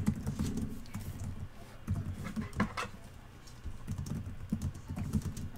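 Scattered light clicks and soft taps of hands working at a desk, coming at an uneven pace.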